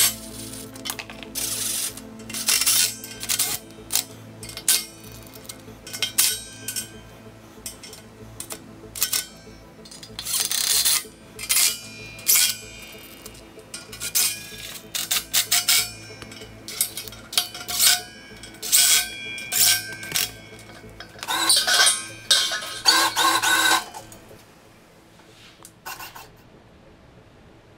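Background music over many short metallic clanks and clatters of steel welding-table parts being handled and bolted together, with brief bursts from a cordless impact driver.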